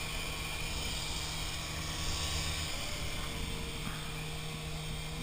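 Micro indoor RC helicopter flying, its small electric motors and rotors giving a steady buzzing whir.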